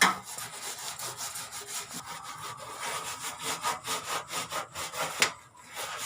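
A sponge scrubber scrubbing a paint mark off a washing machine's surface with dishwash liquid, in quick back-and-forth rasping strokes, about four a second. There is one sharper stroke near the end and a brief pause after it.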